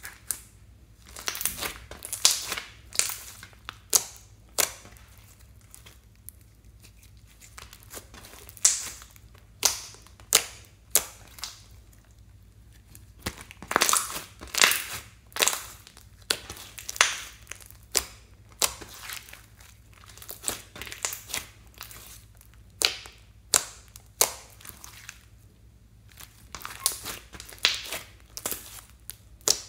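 Hands squeezing and kneading thick pink slime, with irregular sharp pops and squelches, one to three a second, as air trapped in the slime bursts.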